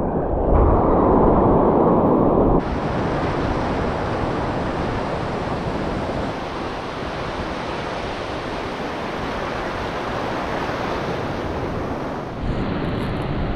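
Sea surf washing on the shore, with wind buffeting the microphone. The noise changes abruptly about two and a half seconds in and again near the end.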